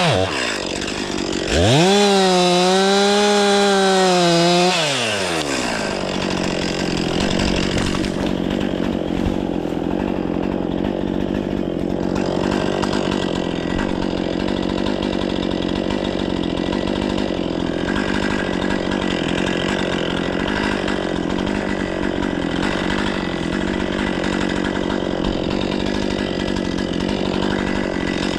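Stihl 500i two-stroke chainsaw revved for about three seconds, then dropping back about five seconds in to a steady idle.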